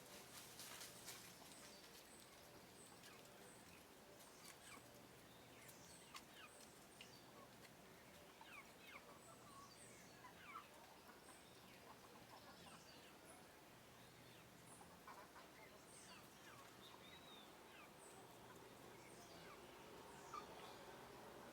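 Faint, scattered high bird chirps with a few brief clicks in the first second, over a low hiss.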